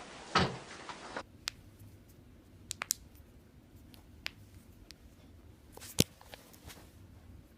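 Joints cracking during chiropractic adjustments: a low thud-crack about half a second in, then a scattering of short sharp clicks and pops, the loudest about six seconds in.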